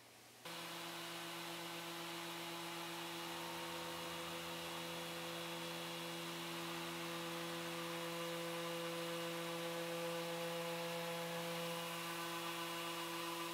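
Electric random orbital sander running steadily on cherry wood, a constant motor whine with a hiss of the pad on the wood. It starts abruptly about half a second in.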